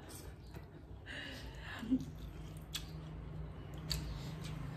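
Close-up eating sounds: chewing and wet mouth noises with sharp clicks and lip smacks. A brief soft voice comes about a second in, and a low steady hum runs through the second half.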